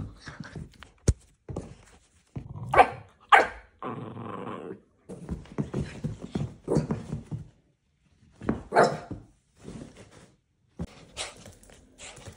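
Italian greyhound barking in short, sharp barks several times during excited play, with a longer growl around four seconds in and scuffling between barks. A single sharp knock about a second in.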